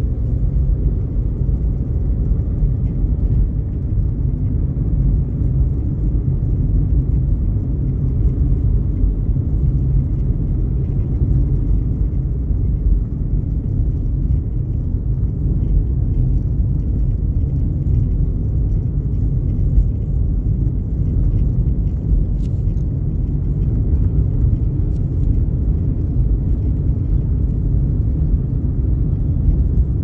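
Steady low rumble of a car driving on a paved road, heard from inside the cabin: engine and tyre noise at an even cruising speed.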